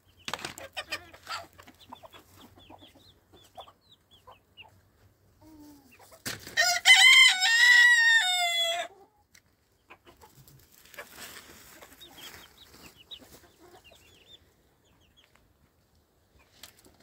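Rooster crowing once, a single long call of about two and a half seconds partway through, with soft chicken clucking around it.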